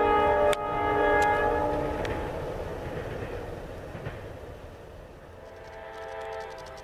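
A freight locomotive's air horn sounds a steady chord and stops about two seconds in. A rolling freight train of tank cars then rumbles and clatters past, fading off. Near the end another train horn chord starts up with metallic clicking.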